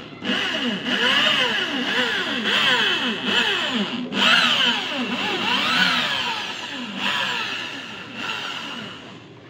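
Electric drill spinning a wet polishing sponge against a car headlight lens, buffing it with polishing paste. The motor whine keeps rising and falling in pitch as the trigger is squeezed and eased, and fades near the end.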